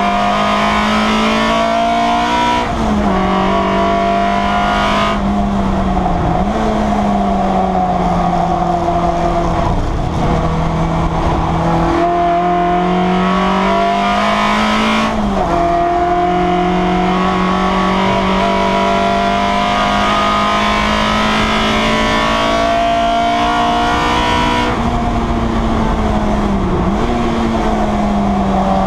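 Citroen Saxo saloon race car's engine, heard from inside the cabin, running hard at high revs. Its note climbs slowly and drops sharply several times at gear changes, with a lower, steadier stretch in between.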